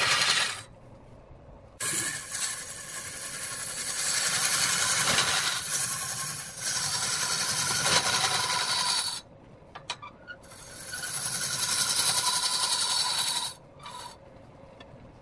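A cloth pressed hard against a large wooden workpiece spinning on a lathe, giving a steady rubbing hiss. It comes in long spells of several seconds, with short quieter breaks about a second in, around nine to ten seconds, and near the end, as the cloth is lifted off.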